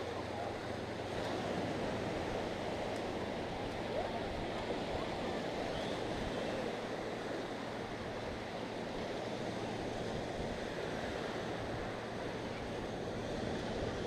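Small sea waves washing steadily onto the beach, a continuous surf wash with no single loud breaker standing out.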